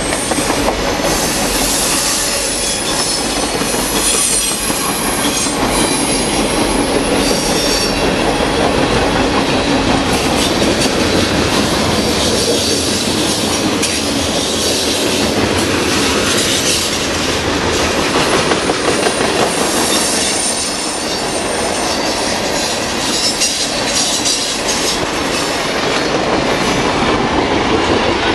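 Freight cars rolling past close by: steel wheels on rail make a steady, loud rush, with high-pitched wheel squeal in the first several seconds.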